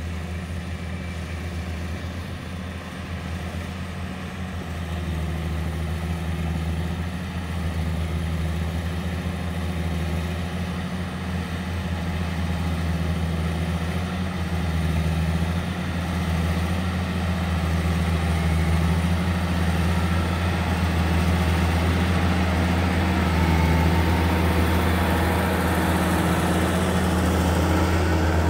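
Diesel engine of a Case IH 9300-series articulated four-wheel-drive tractor running steadily under load as it pulls earthmoving scrapers, growing gradually louder as the tractor comes closer.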